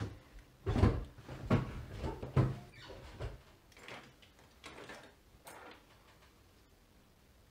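Handling noises from a Samsung Galaxy S10's frame and logic board on a silicone repair mat: a few light knocks and scrapes, the three loudest within the first two and a half seconds, then fainter, scattered taps and rustles.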